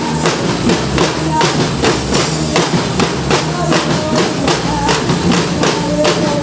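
Percussion band playing a steady march rhythm on drums, with bass drum and snare strokes about three a second.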